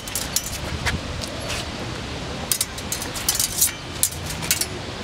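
Fencing blades clashing in a bout: irregular sharp metallic clicks, some singly and some in quick runs, over a steady outdoor hiss.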